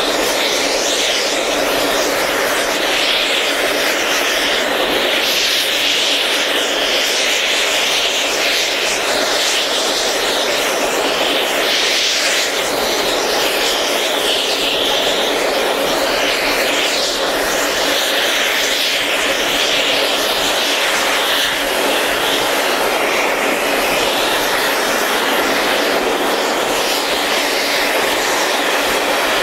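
Loud, steady rush of wind and train running noise, heard with the microphone held out of a carriage window on a steam-hauled train at speed.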